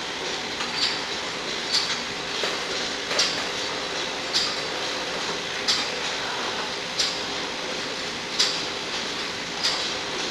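Rotary cap-orienting (cap-flipping) machine running, metal bottle caps rattling steadily in its stainless-steel bowl as they are fed out in a line. A sharper click comes about every second and a quarter.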